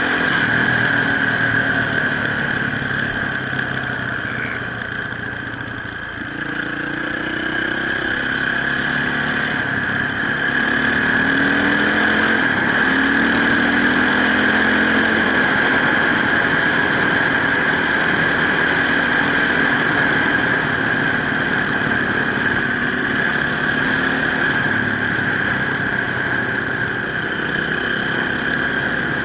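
Off-road enduro motorcycle engine running, its revs rising and falling a few times, under a steady high-pitched hiss.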